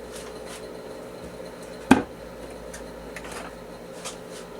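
A single sharp knock about two seconds in, from a tool or part being handled and set down at a metal lathe, over a steady low hum.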